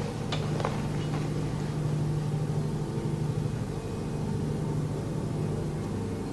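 A steady low droning hum made of several held tones, strongest low down, sounding like a distant airplane or machine but of unknown source. It is the night-time noise the uploader says ran for about four hours without stopping. A few faint clicks come about half a second in.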